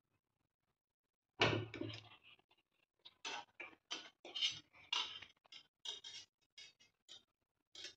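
Metal kitchen tongs knocking and clacking against a pressure cooker pot and a plate as boiled corn cobs are lifted out: one loud knock about a second and a half in, then a string of short, irregular clacks.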